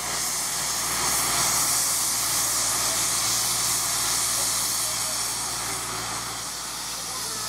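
LMS Stanier Class 5 4-6-0 steam locomotive hissing steam steadily, with a low steady hum underneath.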